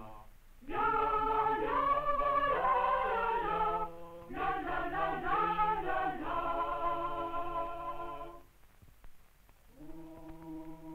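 A choir singing in long held phrases, with a break about eight seconds in, then a quieter held chord.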